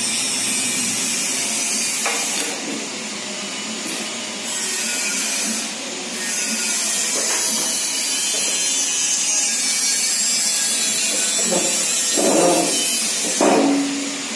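A press pushing a new ball bearing onto a Hero Honda motorcycle crankshaft, over a steady machine hiss. A couple of louder scraping sounds come near the end as the bearing is pressed home.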